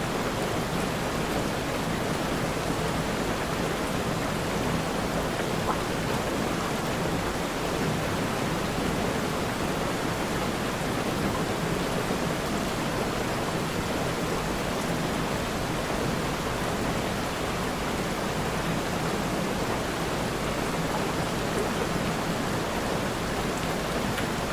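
Steady rain, an even unbroken hiss of heavy rainfall.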